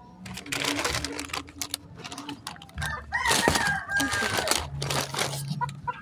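A rooster crows once about halfway through, a held call that falls away at the end. Rustling and clattering noises come before it.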